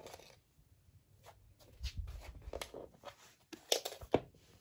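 A hairpin clicking and tapping on a laminate floor as a cat bats it with its paw: a handful of scattered sharp clicks, the loudest two near the end, with a dull low thump about two seconds in.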